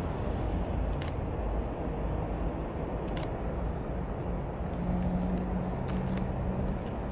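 A few sharp camera shutter clicks, spaced a couple of seconds apart and then several closer together near the end, over a steady low rumble of distant traffic. A low steady hum joins the rumble about five seconds in.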